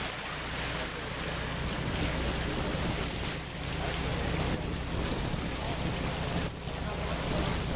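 Sea water churning and splashing alongside a moving boat's hull over the steady low drone of the boat's engine, with wind noise on the microphone.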